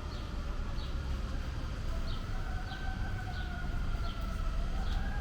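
Emergency-vehicle siren wailing, its pitch drifting slowly up and down, over a steady low street rumble. A bird chirps repeatedly with short high notes.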